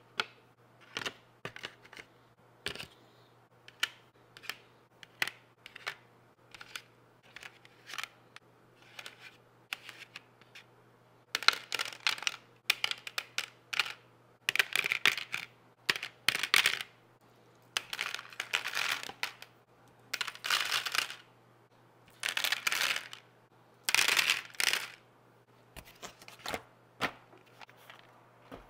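Small board game pieces being dropped and set into the compartments of a black plastic insert tray: separate sharp clicks at first, then, from about eleven seconds in, longer bursts of clattering as handfuls go in.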